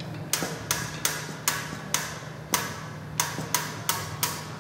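Hand-chain hoist clicking as its hand chain is pulled link by link, about ten sharp metallic clicks a few tenths of a second apart. The hoist is holding a load of about 600 pounds.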